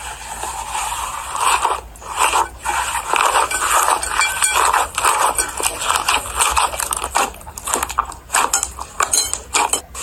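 Slime being squished and worked, giving an uneven run of wet squelches and sharp crackling pops.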